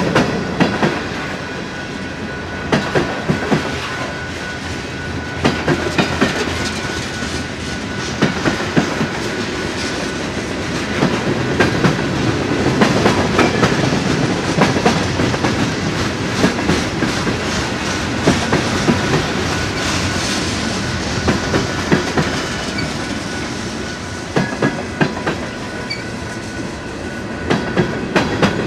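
Freight train of covered hopper and tank cars rolling past close by: a steady rumble of wheels on rail, with clusters of wheel clacks over the rail joints about every two and a half to three seconds.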